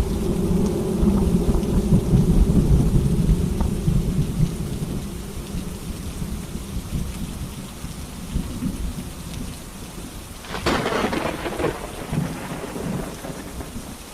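Rain falling steadily with thunder: a heavy low rumble that fades over the first few seconds, then a sharper crackle of thunder about ten and a half seconds in.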